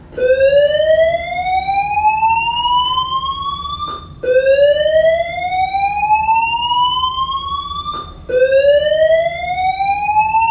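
School fire alarm system sounding its whoop evacuation tone, a loud rising sweep. It climbs steadily for about four seconds, then drops back with a brief click and climbs again, three sweeps in all.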